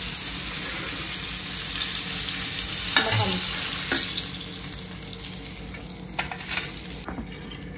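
Rava-coated fish shallow-frying in hot oil in a pan: a steady sizzle, louder for the first few seconds and then dying down.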